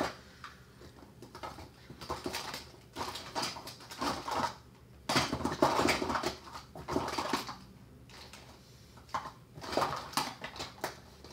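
Irregular bursts of rustling and light clattering from makeup items being rummaged through.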